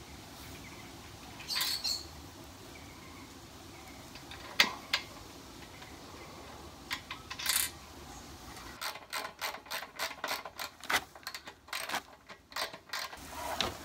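A few separate metal clinks as a bolt, washers and nut are fitted, then a quick run of ratchet clicks, about five a second for roughly four seconds, as a 13 mm socket ratchet tightens the nut.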